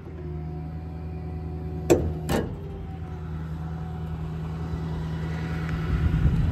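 Ford 6.4 Power Stroke V8 diesel running at a steady idle, growing gradually louder, with two sharp knocks about two seconds in.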